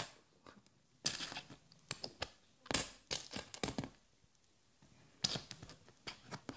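A handful of 50p coins clinking and clicking against each other as they are sorted by hand. The clicks come in short irregular bursts, with a pause of about a second in the middle.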